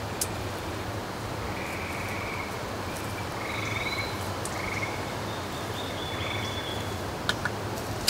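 Frogs calling: several short, pulsing trills one after another, with a thin higher note, over a steady background hiss. Two sharp clicks come near the end.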